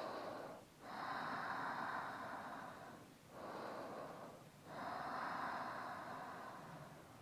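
A woman breathing slowly and audibly in and out, with long, even breaths and short pauses between them.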